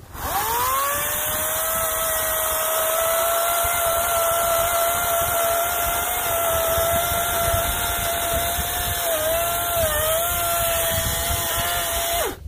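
Ego 56-volt brushless 14-inch cordless chainsaw running, its motor and chain whining up to a steady high pitch within about a second of the trigger. The pitch dips briefly twice, about nine and ten seconds in, then the whine stops with its pitch falling near the end.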